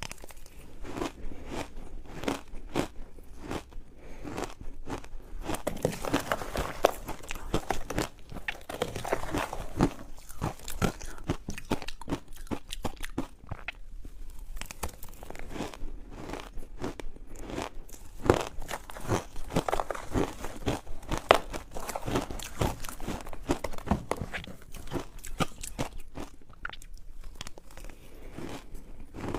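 A person biting and chewing ice close to the microphone: a continuous run of crunches and crackles.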